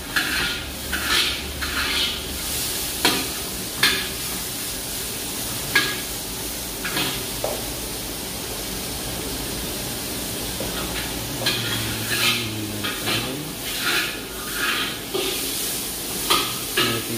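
Metal spatula scraping and clanking against a wok while green peppers are stir-fried, over a steady sizzle. The strokes come in irregular runs, with a quieter stretch in the middle.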